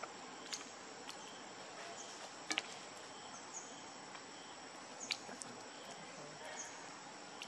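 Steady high-pitched insect drone in the background, with a few sharp clicks and short high chirps scattered through it, the loudest clicks about two and a half and five seconds in.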